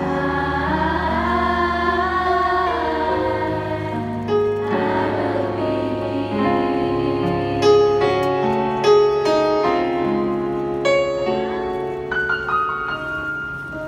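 Live music: a sung melody with long held notes over piano accompaniment, recorded on a phone.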